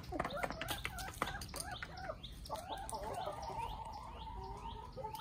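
Backyard chickens clucking, with sharp taps in the first two seconds. Over the second half a drawn-out wavering call runs under a quick series of high falling chirps from a smaller bird.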